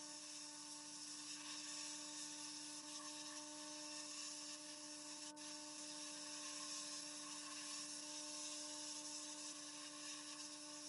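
A small electric motor running at a steady speed with no load change: a constant hum under an even high hiss, with a brief dip about five seconds in.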